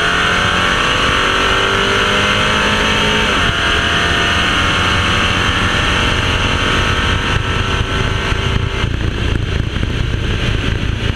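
Car engine under full throttle during a drag-strip pass, its pitch climbing, dropping at a gear change about three and a half seconds in, then climbing again. A little before the end the throttle is lifted, and the engine note gives way to wind and road rumble as the car coasts.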